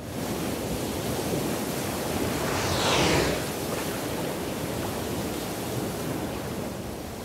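Ocean surf with waves rolling and breaking steadily. About three seconds in, one louder whoosh of water sweeps from high to low.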